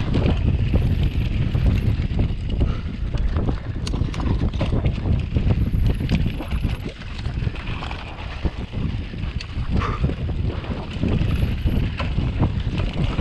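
Wind buffeting the microphone of a camera on a downhill mountain bike riding fast, with the tyres rolling over dry dirt and rock and frequent clicks and knocks from the bike over rough ground.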